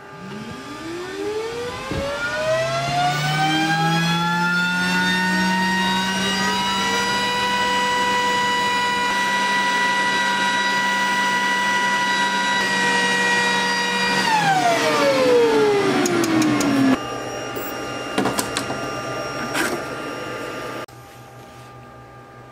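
Motor of a laser-cutter setup spinning up with a rising whine, running steadily at a high pitch, then winding down about fourteen seconds in. Near the end there are a few clicks and light handling sounds.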